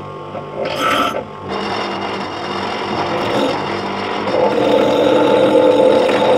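Bench grinder running while a steel hammerhead is pressed against its grinding wheel to reshape it. There is a short touch about a second in, then steady metal-on-wheel grinding that grows louder from about four seconds.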